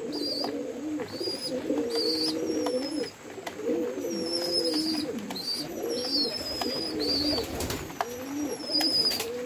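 Pigeons cooing in a low, wavering warble, with short high squeaks and thin falling whistles repeating over it. A few light taps come late on.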